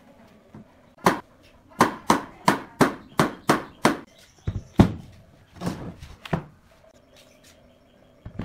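A quick run of about eight sharp knocks on wood, about three a second, like pine furniture parts being struck into place. A few heavier, deeper thumps follow as the wooden pieces are set down on the workbench.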